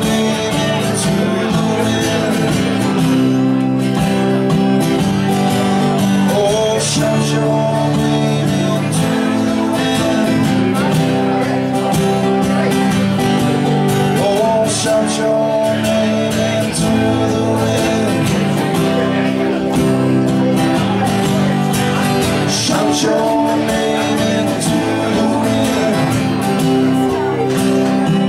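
Live acoustic guitar music: a continuous strummed and picked passage.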